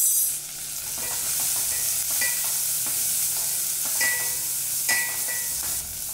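Sliced shallots, chillies and curry leaves sizzling in hot oil in a stainless-steel pot, stirred with a wooden spatula that scrapes against the pot. A short louder burst comes right at the start.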